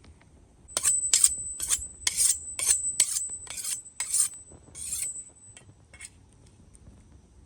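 About ten quick rasping strokes of metal scraping, a little over two a second, with a thin high metallic ring under them, followed by a few lighter scrapes.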